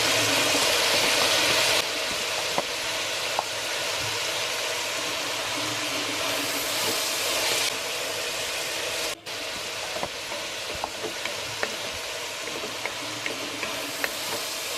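Sliced onions and crushed shallots sizzling in hot coconut oil: a steady frying hiss with scattered small clicks, dropping in level about two seconds in and again about halfway.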